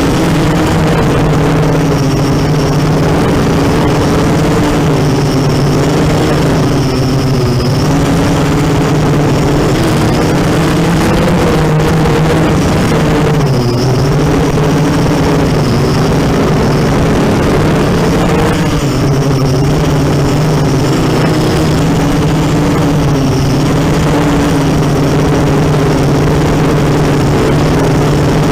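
ZMR 250 racing quadcopter's brushless motors and propellers in flight: a steady buzzing whine whose pitch wavers up and down with the throttle.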